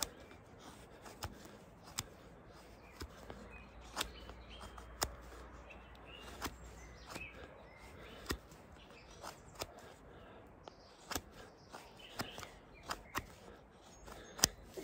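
Short, sharp scraping strokes at uneven intervals, about one or two a second: a Fallkniven S1 knife blade scraping fine shavings off a resinous twig onto cotton tinder to start a fire. Faint birds chirp in the background.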